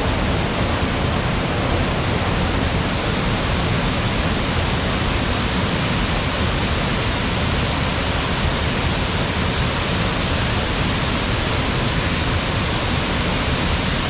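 Steady, loud rush of water at Caney Creek Falls, a dense even hiss that does not change.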